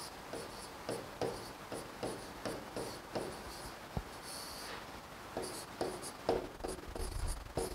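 Chalk writing on a blackboard: a run of short, irregular scratching strokes, with one sharper tap about four seconds in.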